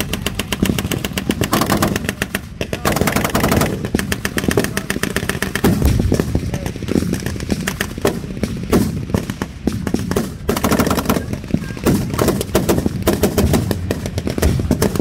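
Reenactment blank gunfire: rapid machine-gun bursts and scattered rifle shots in quick succession, with a low vehicle engine rumble running beneath.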